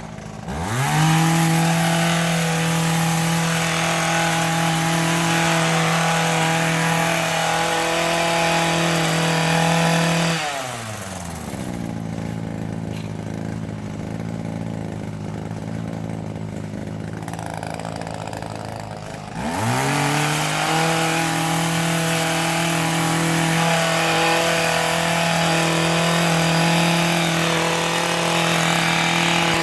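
Gas hedge trimmer's two-stroke engine running at full throttle, dropping to idle about ten seconds in, idling for around nine seconds, then revving back up to full speed.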